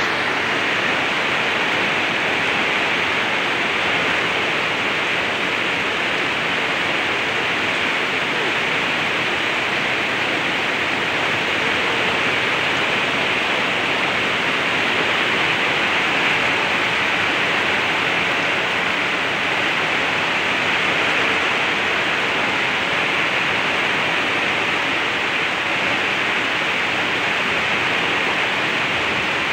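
Heavy rain and a torrent of muddy flash-flood water rushing down a bank and across a road: a loud, steady rushing that never lets up.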